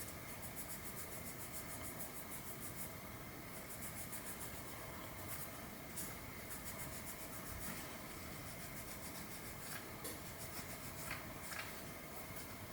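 Faint rubbing with quick repeated strokes for the first few seconds, then a few light clicks and taps, as of a small metal part being worked by hand.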